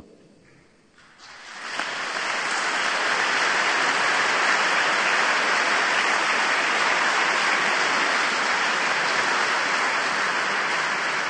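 Audience applauding: the clapping starts about a second in, builds quickly and holds steady, easing a little near the end.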